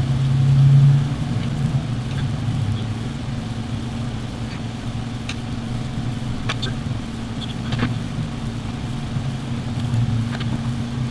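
A steady low hum, like an engine running, louder for about the first second, with a few light clicks scattered through the second half.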